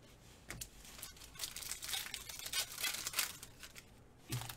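Crinkling of a trading-card pack wrapper and cards being handled, fairly quiet, coming in irregular rustles that start about half a second in and are busiest in the middle.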